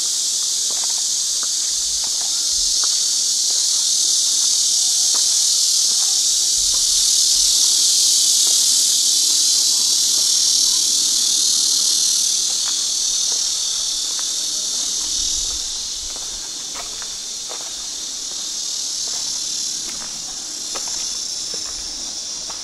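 Loud, steady chorus of cicadas: a dense high-pitched buzz that holds throughout and eases a little in the second half.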